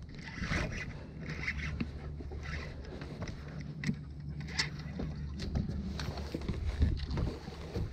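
Low steady hum of a boat motor under wind on the microphone, with scattered small clicks and scrapes from a spinning rod and reel as a small fish is reeled in to the boat.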